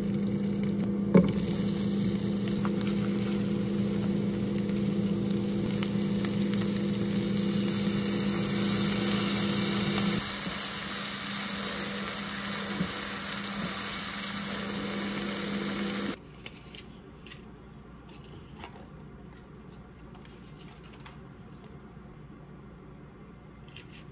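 Chikuwa and green pepper sizzling in sesame oil in a small square frying pan, with a steady hum underneath. About two-thirds of the way through the sizzle cuts off abruptly, leaving a much quieter stretch with scattered light clicks and taps.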